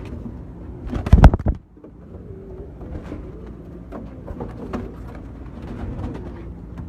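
Domestic pigeons cooing in low, repeated calls. A loud, brief thump or flutter comes about a second in.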